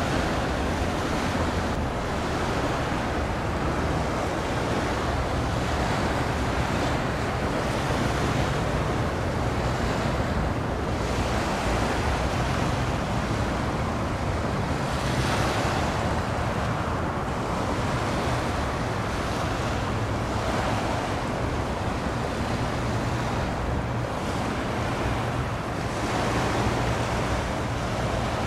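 Steady wind and water noise at the shoreline, with wind buffeting the microphone and a faint low steady hum underneath.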